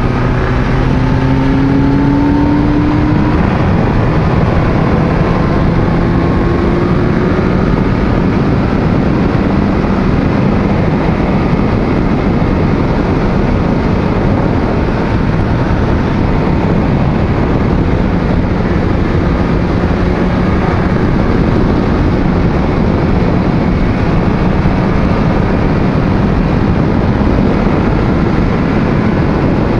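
Yamaha FZ1's inline-four engine pulling up through the revs for the first few seconds, easing, then holding a steady cruise, heard under heavy wind rush on the helmet-mounted microphone.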